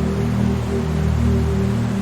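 Steady rushing river water, an even hiss, under a sustained low ambient music drone held on several steady notes.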